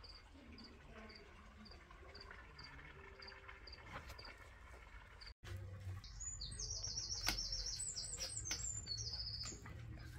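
A cricket chirping at an even pace, between two and three chirps a second; about five seconds in the sound cuts out for an instant, then a small bird sings fast, high trilled phrases over a low hum.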